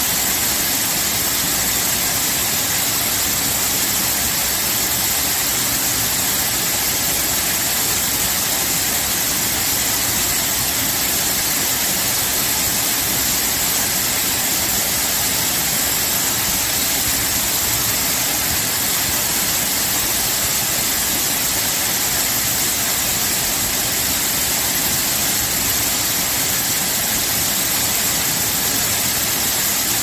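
Waterfall on a man-made canal drop, water pouring in a steady, unbroken rush whose hiss is strongest in the high range.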